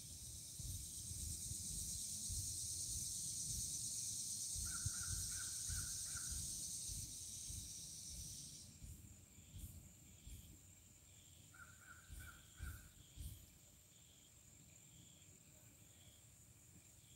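Outdoor ambience: a steady high insect drone that stops about nine seconds in, a bird calling in two short runs of four or five calls, and low wind rumble on the microphone.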